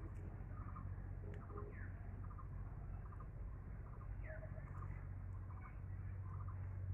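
Small birds chirping: repeated short chirps and quick falling call notes, over a steady low hum.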